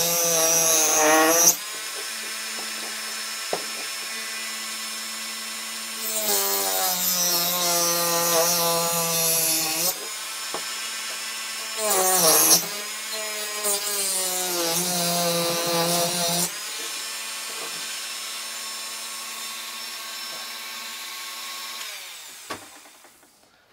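Rotary tool spinning a small toothed circular saw blade, cutting into a hard curly maple block in three passes: each time the blade bites, the motor's whine drops in pitch and a rasping cutting noise joins it, then the whine climbs back as the tool runs free. The sound fades away near the end.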